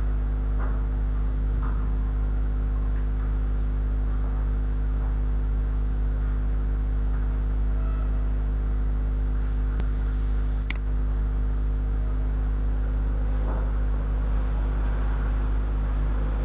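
Steady electrical mains hum with a stack of even overtones, running unchanged throughout. Two sharp clicks come about ten and eleven seconds in.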